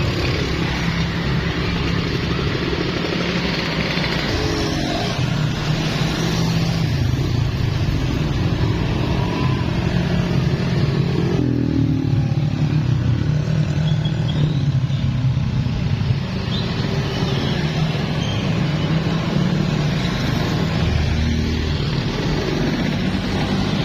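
Road traffic close by: the engines of passing vehicles running in a loud, steady rumble.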